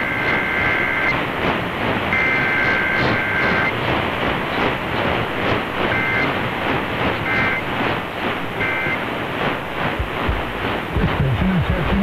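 Emergency Alert System SAME data tones received over AM radio: a two-tone warbling screech sent as two long header bursts in the first four seconds, then, after a pause, three short end-of-message bursts, marking a Required Weekly Test. A steady rush of static and hiss lies under it all.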